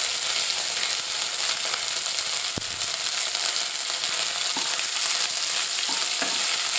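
Green chilli and garlic paste with whole spices sizzling steadily in hot oil in a metal kadhai while a perforated steel skimmer stirs it, with one sharp knock about two and a half seconds in.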